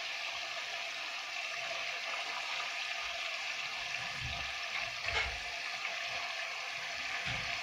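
Hot oil sizzling steadily under fried liver, bell pepper and garlic in a pan, with a few soft bumps and a click about five seconds in as tomato wedges are set in by hand.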